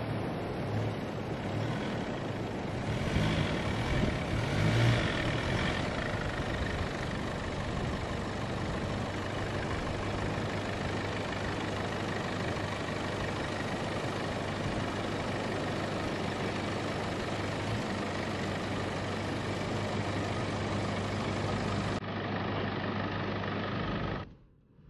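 Four-wheel drive's engine running at a steady low idle as the vehicle crawls over beach rocks, a constant low hum with a slight rise a few seconds in. The sound drops away just before the end.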